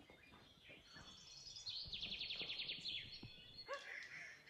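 Faint birdsong in woodland: a rapid, high trill lasting about a second near the middle, followed by a few short calls.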